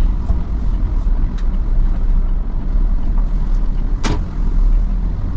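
Large tour coach driving, heard from inside its cabin: a steady low engine and road rumble, with one sharp knock about four seconds in.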